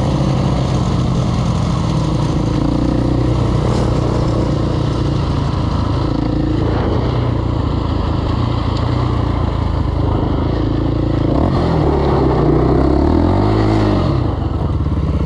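KTM 525 XC quad's single-cylinder four-stroke engine running under way at a steady pace. Near the end it revs up and back down a couple of times.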